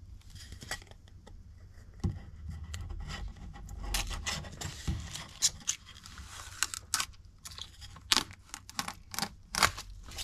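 Protective plastic film being peeled off a clear acrylic disc, giving an irregular run of sharp crackles and ticks that comes thicker from about four seconds in, with soft handling rubs underneath.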